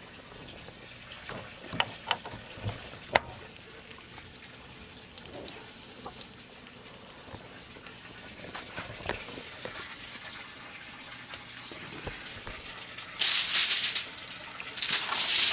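Aluminium foil crinkling in two loud bouts near the end as a pork butt is wrapped in it. Before that, a few scattered light clicks and knocks.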